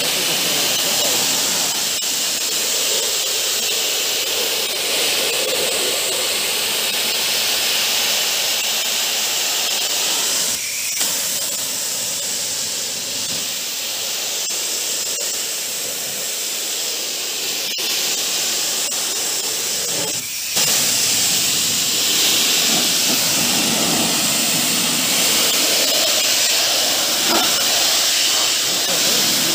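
High-pressure water jet from a pressure washer lance, rinsing snow foam off a car radiator's fins and spattering the concrete floor: a steady, loud hiss. It breaks off briefly twice, about a third and two thirds of the way through.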